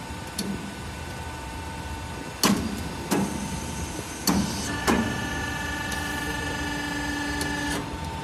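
Hydraulic cutting/press unit of a metal-forming machine being cycled by hand: a steady machine hum with four sharp metal clanks in the middle, then a steady whine for about three seconds near the end.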